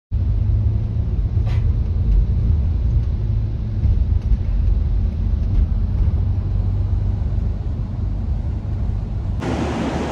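Steady low rumble of a road vehicle on the move, engine and road noise together. Shortly before the end it changes abruptly to a brighter, hissier background.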